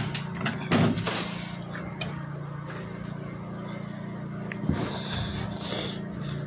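Steady low hum of a running machine, with a brief louder knock or clatter about a second in and another shorter one a little before five seconds.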